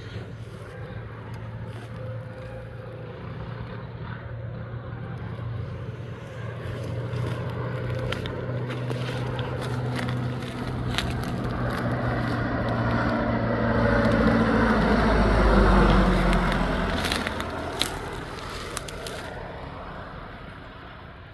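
A small single-engine propeller plane's piston engine drones closer and louder, passes close about 16 seconds in with a sweeping shift in pitch, then fades away.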